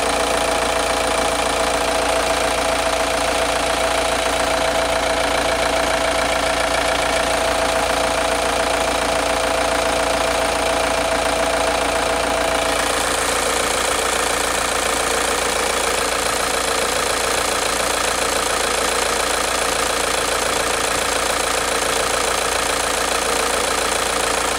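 Audi 80's 1.9 TDI (1Z) four-cylinder turbodiesel idling with its diesel clatter, just after starting, with a steady squeal over it that stops about halfway through.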